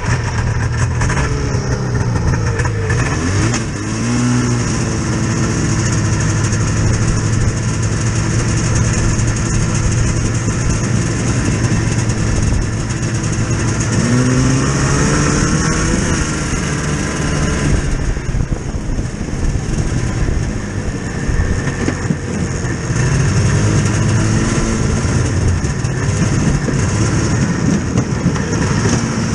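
Vehicle engine running under load, its pitch climbing and dropping as it accelerates and eases off: once about three seconds in, again around the middle, and again near the end.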